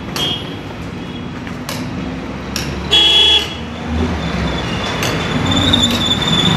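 Street traffic: a vehicle horn beeps once, briefly, about three seconds in, the loudest sound. A motorcycle engine then grows louder as it passes close near the end.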